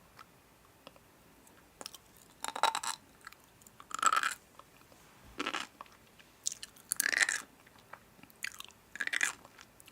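A person biting and chewing crunchy food close to the microphone, with about seven separate crunches after a quiet first two seconds.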